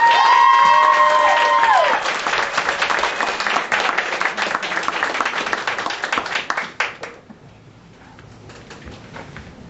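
Audience cheering and applauding: long held whoops over the clapping for about the first two seconds, then applause alone that dies away about seven seconds in.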